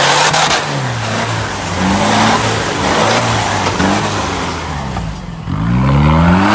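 Off-road 4x4 pickup's engine revving up and down repeatedly as it drives through deep mud, with a hard rising rev near the end.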